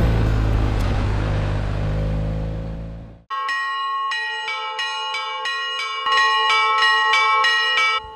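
Motorcycle engine running under background music, fading out about three seconds in. Then a rapid peal of bells, struck two or three times a second, the strikes ringing on into one another.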